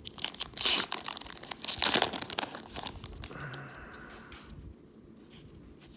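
A baseball card pack wrapper being torn open and crinkled, with sharp rips and crackles loudest in the first two seconds, fading to quieter handling in the second half.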